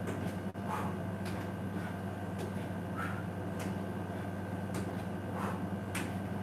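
Sneakers landing on a tiled floor during standing kicks: soft, irregular taps, roughly one or two a second, over a steady low hum.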